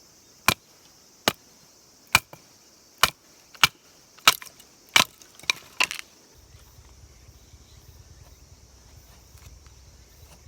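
A run of about nine sharp knocks, roughly one every two-thirds of a second, ending about six seconds in. A steady high insect chirring runs behind them, and a low rumble comes in after the knocks stop.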